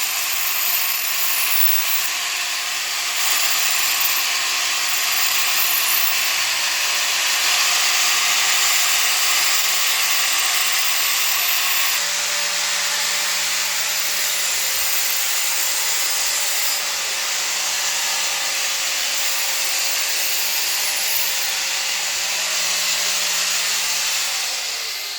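Motorised knife-sharpening grinder running, with a steel blade held against the spinning wheel: a steady grinding hiss over the motor's hum. Near the end the motor is switched off and winds down, its hum falling in pitch as the grinding fades.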